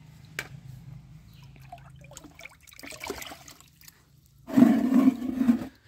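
Muddy water in a plastic bucket, first stirring faintly, then a loud gush of water lasting about a second, beginning about four and a half seconds in, as it pours and splashes out of the bucket.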